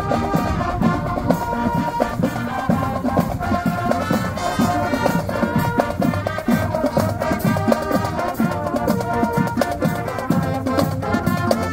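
High school marching band playing on the march: brass (trumpets and sousaphones) carrying a tune over a steady drumline beat.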